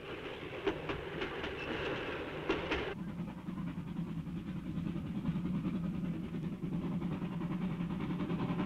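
JNR Class D51 steam locomotive. For the first three seconds there is noise from the cab with a few sharp knocks. About three seconds in the sound changes abruptly to the locomotive's steady low rumble outside, growing slowly louder as it approaches, with faint regular beats near the end.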